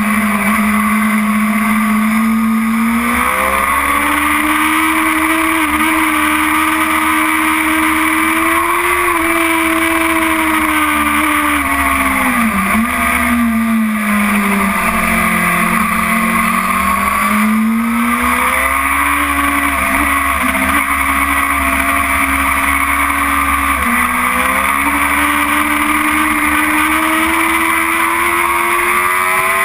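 BMW S1000RR inline-four engine running hard at high revs, heard from on board over wind rush. The engine note steps up a few seconds in, sinks through the middle as the bike slows and then climbs again, and steps up once more near the end.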